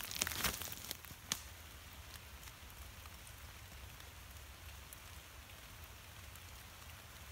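Footsteps crunching through wet leaf litter and twigs for about the first second, with one sharp snap a little later, then a steady light patter of rain on the forest floor.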